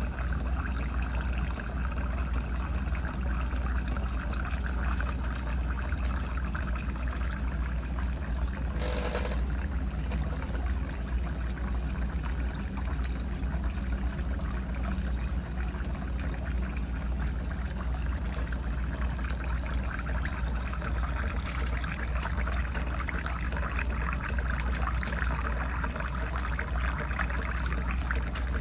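Steady trickle of water pumped by a model Rider-Ericsson hot-air pumping engine, pouring from its copper outlet pipe into a tin can; the engine itself runs almost silently.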